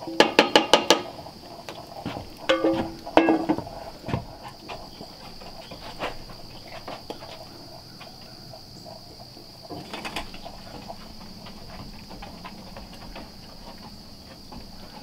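Metal utensil clinking and scraping against a skillet as food is served onto plates: a quick run of sharp clinks at the start, a few more about three seconds in, and another near ten seconds. A steady high-pitched insect buzz carries underneath.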